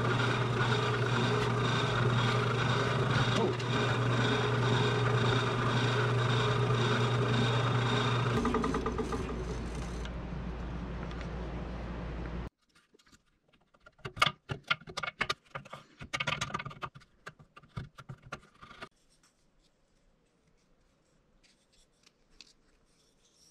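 Drill press motor running steadily with a low hum while boring into a wooden pattern piece, winding down about eight seconds in and stopping. Then a few seconds of short scrapes and knocks as the wooden piece is handled.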